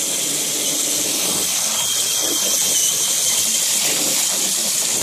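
Tap water running from a faucet in a steady stream into a basin of bubble-bath foam, an even splashing hiss with a thin high tone held through it.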